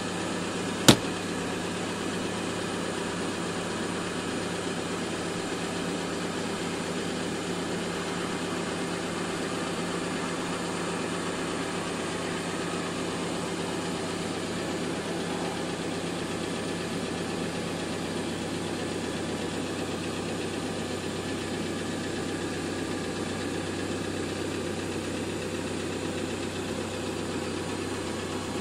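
Car engine idling, heard from inside the cabin as a steady hum. One sharp click about a second in.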